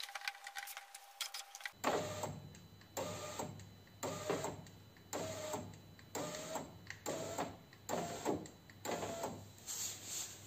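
Rubber window seal being pushed and worked into the door's channel by hand, squeaking in short repeated rubs about once a second from about two seconds in.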